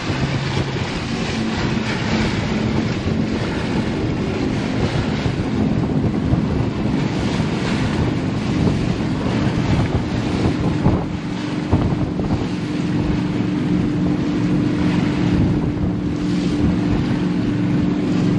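Wind buffeting the microphone over the steady drone of a Carver 504 motor yacht's engines under way, with water rushing past the hull.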